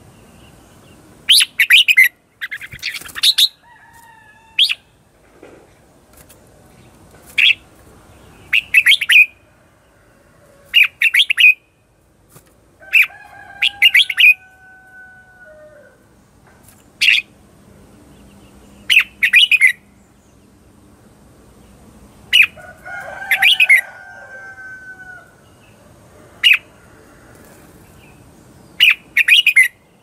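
Red-whiskered bulbul singing short, loud, chirpy phrases every second or two, the fired-up song of a decoy bird. Twice a longer, lower drawn-out note sounds under the chirps.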